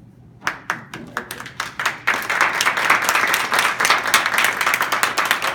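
A small audience applauding: a few scattered claps about half a second in, building into steady applause.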